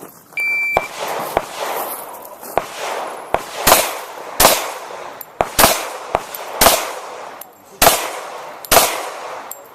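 Competition shot timer giving a short start beep, then a string of about a dozen Glock 21 .45 ACP pistol shots at an uneven pace, a fraction of a second to about a second apart, each with a short ringing echo.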